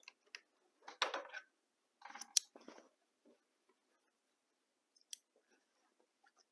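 Handling sounds at a sewing machine that has just stopped: short clicks and fabric rustling as a sewn quilt patchwork piece is drawn out from under the presser foot. The loudest is a sharp click about two and a half seconds in, with one more faint tick near five seconds.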